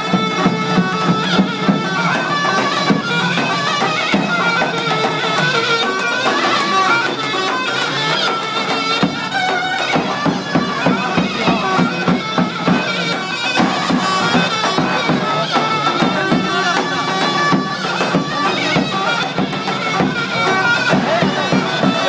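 Live Turkish folk dance music: a davul bass drum beaten in a steady dance rhythm under a loud, reedy wind-instrument melody.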